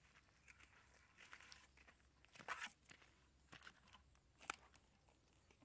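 Footsteps on dry grass and crumbly soil, quiet and irregular: light rustles and crunches, with a louder crunch about two and a half seconds in and a sharp click about four and a half seconds in, as a plastic bucket passes close by.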